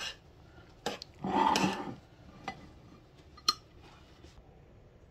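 A spatula scooping rice in a frying pan, with utensil clicks and clinks against cookware. The loudest part is a scrape of about a second, a little over a second in. A sharp, ringing clink comes about three and a half seconds in.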